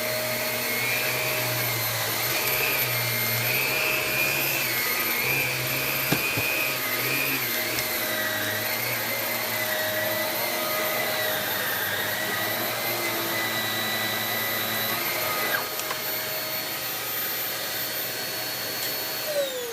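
Shark Navigator Swivel upright vacuum cleaner running as it is pushed around the floor, its motor whine wavering a little in pitch. Near the end the motor is switched off and the whine falls away as it spins down.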